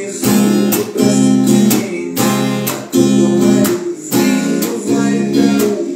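Steel-string acoustic guitar strummed in a steady repeating strum pattern, capoed at the first fret, changing between C, D and Em chord shapes.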